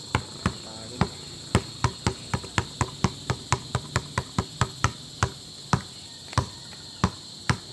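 A rubber basketball dribbled hard on an asphalt road, sharp bounces at about three to four a second that slow to about two a second near the end.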